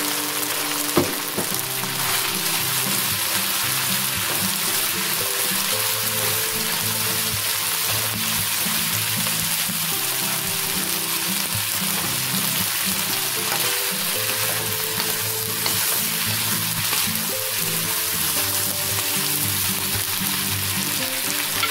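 Beef, carrots and Chinese broccoli stems sizzling steadily in a hot, oily wok as they are stir-fried, with one sharp knock about a second in. Background music plays underneath.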